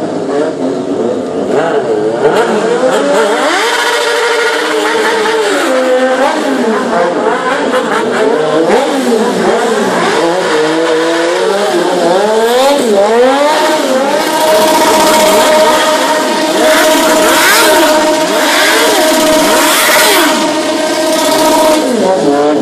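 Sport motorcycle engine revving up and down repeatedly during a stunt routine, then held at steady high revs for about eight seconds as the bike circles on the spot, dropping near the end.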